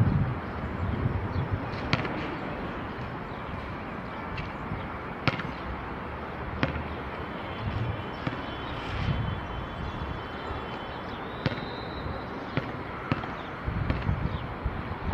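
Open-air ambience on an outdoor court: wind buffeting the microphone in low rumbling gusts, with a handful of sharp single knocks a second or more apart.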